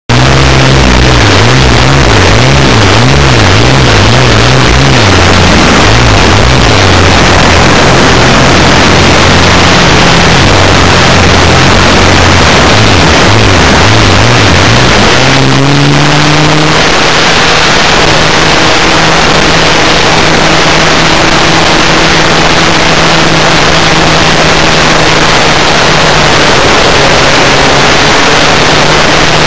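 Radio-controlled model biplane in flight heard from its onboard camera: an overloaded rush of wind with the motor's low hum beneath, wavering in pitch at first, then jumping up about halfway through and settling into a steady drone.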